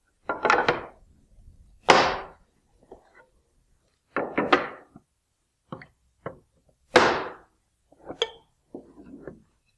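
Feather boards and a wooden workpiece being set down and positioned on a table saw's cast-iron top: a series of separate knocks and clacks, the loudest about two seconds and seven seconds in. The saw is not running.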